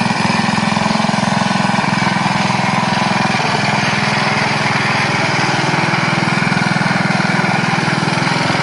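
Riding lawn tractor's small engine running steadily as the tractor drives up a wooden ramp.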